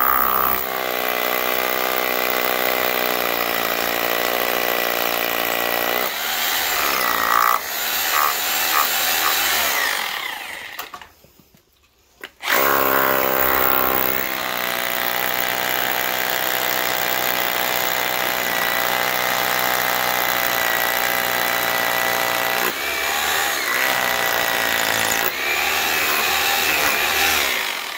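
Corded Bosch Bulldog Extreme rotary hammer drilling through a wooden sill plate into a concrete slab for anchor holes. It runs in two long stretches with a short stop about eleven seconds in.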